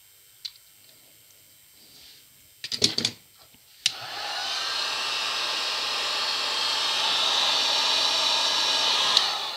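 Handheld heat gun switched on with a click about four seconds in. Its fan runs steadily, then it is switched off near the end and winds down, heating heat-shrink tubing on a worn food-mixer clutch spline. A few brief clatters of handling come just before it starts.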